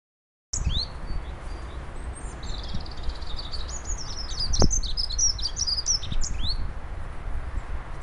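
A small songbird singing: a quick jumble of high twittering notes with a few downslurred whistles, over a low background rumble. One short knock comes about halfway through.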